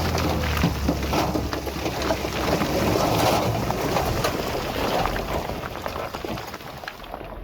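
Earthmoving work in loose soil: crunching and clattering dirt and stones, with a low engine hum that drops away about a second in.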